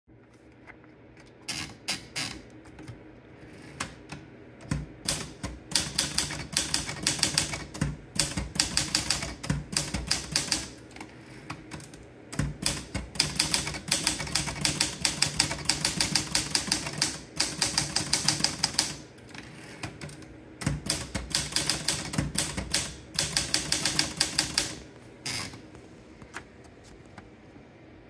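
Erika Daro manual portable typewriter being typed on: fast runs of sharp keystroke clacks in three bursts of several seconds each, one per typed line, with short pauses between the lines and a few scattered clicks near the start.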